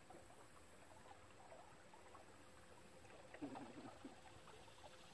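Near silence, with faint scattered patter and a brief soft rustle about three and a half seconds in.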